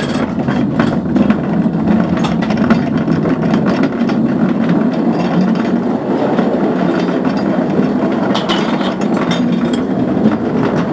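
Ore cart's steel wheels rolling fast along mine rails: a steady rumble with frequent clicks and clatters from the track.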